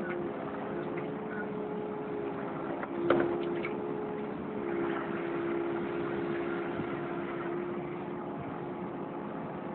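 Kubota KX080 excavator's diesel engine and hydraulics running under working load, heard from on the machine as a steady hum with a whine. A single sharp knock about three seconds in is the loudest sound.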